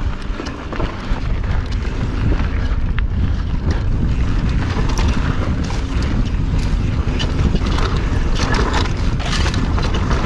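Wind buffeting a chest-mounted camera microphone while a mountain bike's tyres roll down a dirt singletrack, with the bike clattering over bumps more often in the second half.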